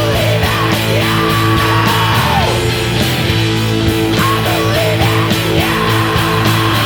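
Loud rock music with a steady drum beat under sustained bass notes and a held melody line that slides at the ends of its notes.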